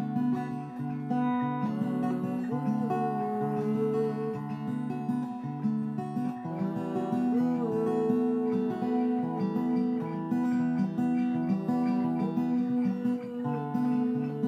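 Guitar being strummed slowly, chords ringing and changing every second or so, with a note sliding up in pitch a few times.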